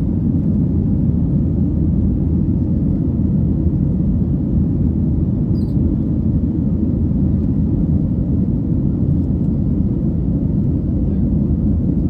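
Steady low rumble of engine and air noise inside an airplane cabin in flight.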